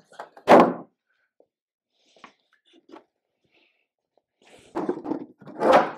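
A fiberglass Model A fender set down on a concrete floor with a loud clatter about half a second in, then a few faint footsteps. Near the end a wooden box is shifted and set down with a thunk.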